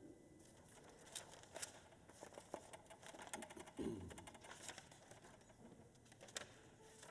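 Near silence, with faint scattered clicks and rustles of players handling their classical guitars and music stands, and a soft thump about four seconds in.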